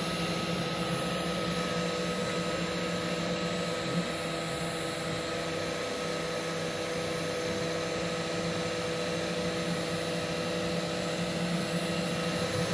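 Spindle motor of a mini five-axis CNC machine running steadily while its small bit carves a wooden test blank held upright in a chuck. It makes a steady whine with several held tones, and there is a single small click about four seconds in.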